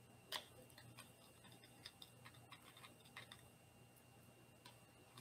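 Faint light clicks and ticks of a measuring spoon and spice jar being handled as taco seasoning is shaken into the spoon and tipped into a glass mixing bowl, with one sharper click just after the start.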